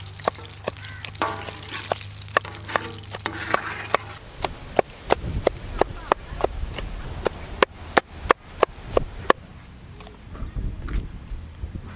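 A run of sharp knocks from food being worked by hand, sparse at first, then about three a second for several seconds before thinning out near the end; a steady low hum stops about four seconds in.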